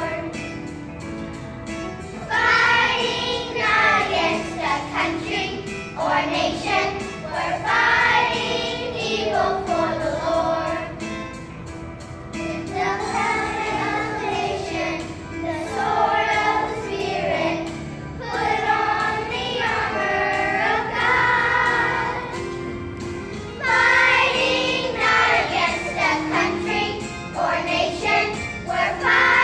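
Children's choir singing together in phrases a few seconds long, with short breaks between them.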